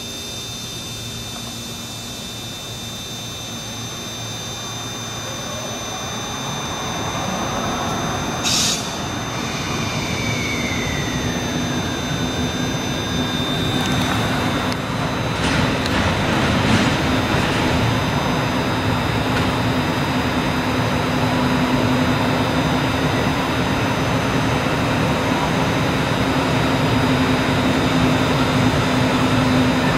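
EF65 electric locomotive approaching slowly at the head of a container freight train, its steady hum growing louder throughout. There is a brief sharp hiss about nine seconds in, and a few clicks around the middle.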